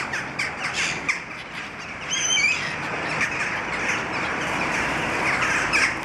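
A flock of gulls squawking, with many short, falling calls overlapping throughout as they crowd in for thrown bread. One higher, wavering call stands out about two seconds in.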